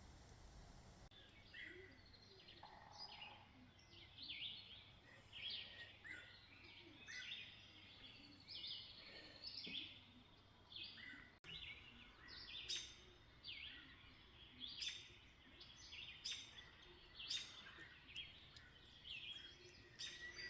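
Faint birdsong: small birds giving short, sweeping chirps over and over, a burst every second or so.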